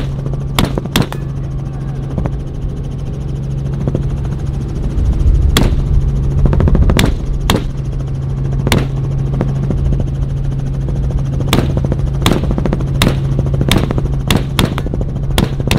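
Centerfire precision rifle shots over the steady drone of a helicopter: more than a dozen sharp cracks at uneven intervals, coming closer together near the end.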